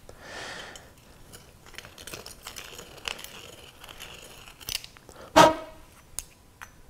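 Reamer blade scraping around inside the cut end of a copper pipe to deburr it, in faint rasping strokes with light clicks. About five seconds in there is one sharp metal knock with a short ring.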